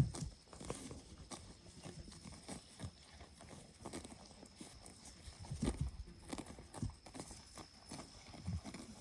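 Sheep and goat hooves stepping and shuffling on hard ground, making irregular knocks and clicks, with one sharp knock right at the start.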